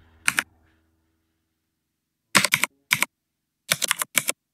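Keys being typed on a computer keyboard: a single keystroke, then two quick runs of clicks, about two and about four seconds in.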